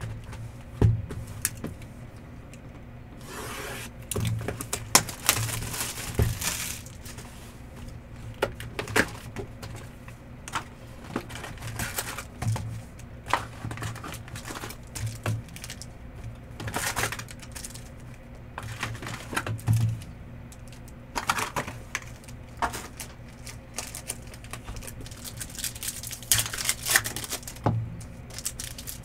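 Trading card packs being torn open by hand: wrappers tearing and crinkling in several bouts, among scattered sharp taps and clicks of cards being handled.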